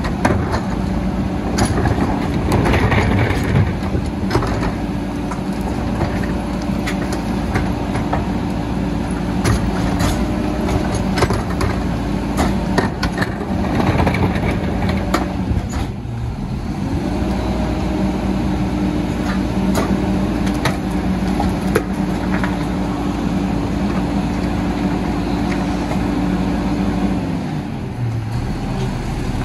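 Rear-loading garbage truck running its hydraulic packer: a steady engine hum with a fainter whine, and thuds and clatters as trash goes into the hopper. The hum drops off about halfway through, picks up again, and falls away near the end.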